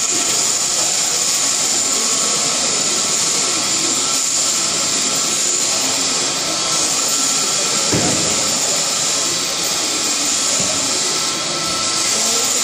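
Overhead-drive sheep-shearing machine running steadily, the handpiece whirring as it cuts through the fleece. There is a brief low thump about eight seconds in.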